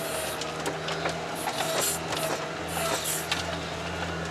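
Wheeled all-terrain vehicle's 1.5-litre engine running at a steady low hum while crawling through snow, heard inside the cab, with scattered clicks and rattles from the cab and running gear.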